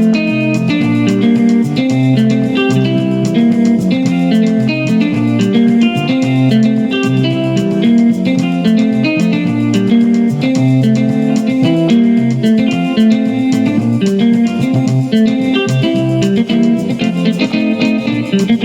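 Yamaha PSR keyboard played in split mode: a bass voice under the left hand and a guitar voice under the right, playing a steady up-tempo praise groove with a busy run of plucked notes over a moving bass line.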